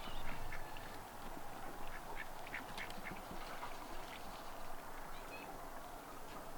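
Domestic ducks quacking: a scattered run of short calls over a steady background hiss.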